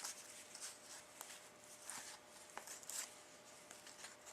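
Faint handling of trading cards: soft rustles and small ticks as cards are slid and shuffled through by hand.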